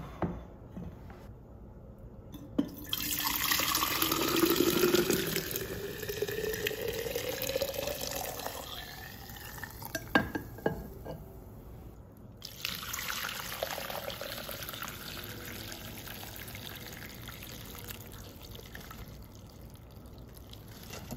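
Homemade bone broth poured from a glass pitcher into a glass jar, the pitch of the filling jar rising steadily as it fills, with a few sharp glass clinks. After a short pause the pour resumes more softly.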